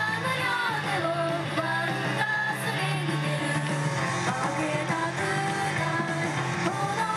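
Girl group singing an upbeat pop-rock song into handheld microphones over a backing track.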